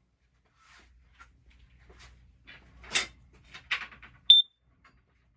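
Scattered rustling and knocking handling noises, then a single short, high-pitched electronic alarm beep about four seconds in, the loudest sound.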